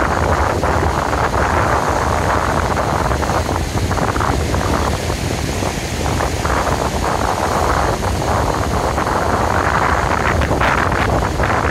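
Wind buffeting the microphone over the wash of surf breaking on a sandy shore, a steady rush that eases a little midway and swells again near the end.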